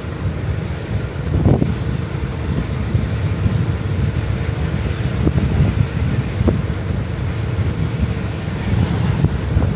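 Wind buffeting the microphone: a loud, fluttering low rumble that never lets up.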